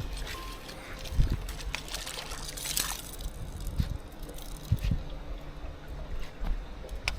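Water sloshing and trickling, with a few dull knocks and small clicks scattered through.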